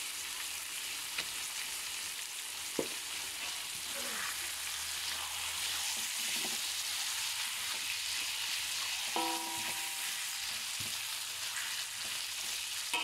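Chicken pieces, onions and oyster sauce sizzling steadily in a hot metal wok, stirred and scraped with a silicone spatula, with a few light knocks. About nine seconds in, a short ringing tone sounds for under a second.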